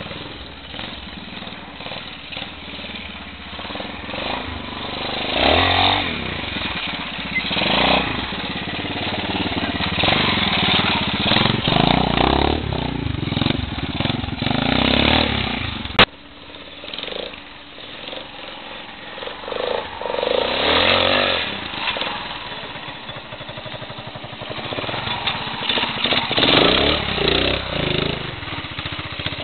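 Classic trials motorcycle engine revving in short, repeated bursts and dropping back between them as the bike is ridden slowly over rocks and roots. A single sharp click about halfway through.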